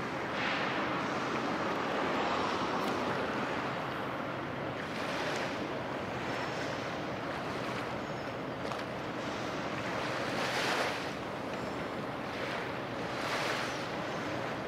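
Small waves washing at the water's edge, with some wind, a steady hiss that swells about four times.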